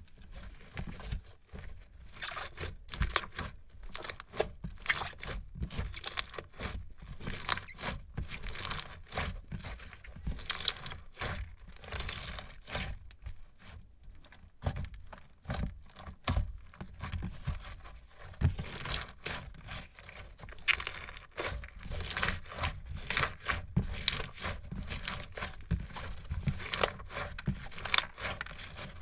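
Crunchy slime being squeezed, stretched and kneaded by hands, giving a dense, irregular run of small clicks and pops, with one sharp, loud pop near the end.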